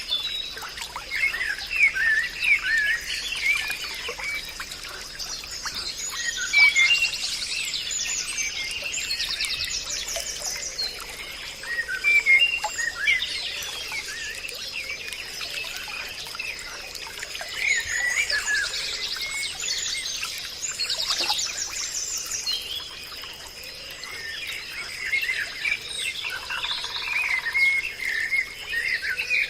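Many wild birds chirping and singing together in a forest chorus, with short calls throughout and several bursts of rapid high trills, over a steady high-pitched hum.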